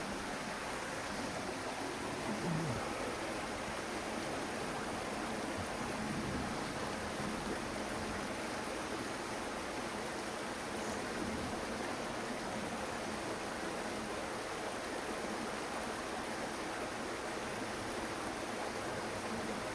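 A steady, even rushing noise, like flowing water from a stream.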